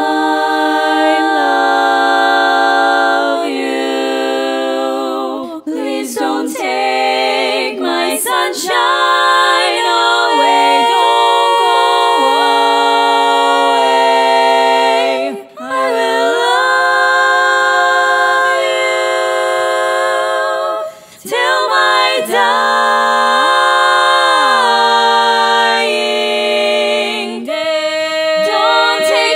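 Four-part barbershop harmony sung a cappella by one woman multitracked, holding long chords. There are two short breaks, about a quarter and three quarters of the way through.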